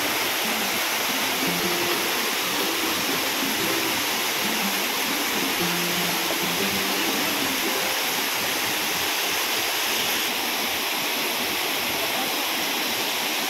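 Small waterfall pouring into a jungle pool: a steady, even rush of falling water.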